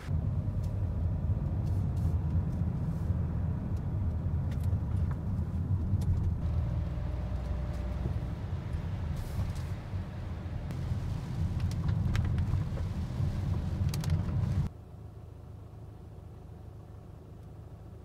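Car driving, heard from inside the cabin: a steady low rumble of road and engine noise with scattered light ticks. About three quarters of the way through it drops abruptly to a much quieter hum.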